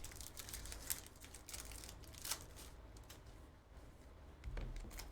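Trading cards being handled and flipped through, a scatter of soft clicks and rustles over a low room hum.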